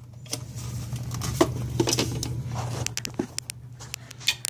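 Handling noise from a hand-held phone camera: rustling and scattered clicks as it is moved about, over a steady low hum.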